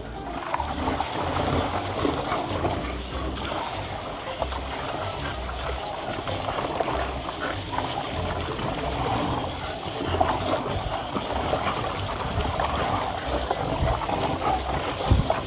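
Garden hose pouring a stream of water into a plastic tub of bathwater, a steady gush and splash.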